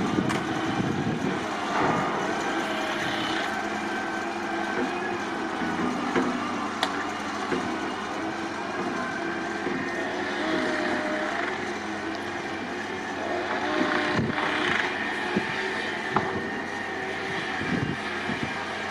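Measuring tram car 5521 running on the track: a steady running noise with several held tones and a few sharp clicks or knocks.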